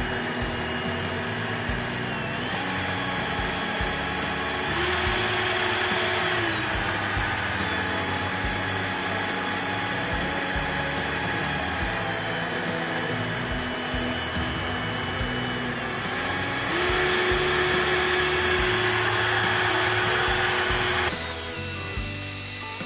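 HDT CDD405 cordless drill motor running with no load, its trigger clamped down: a steady whine that jumps in pitch and loudness several times, louder from about 5 to 6.5 seconds and from about 17 to 21 seconds. The drill is being run without stopping to drain its battery.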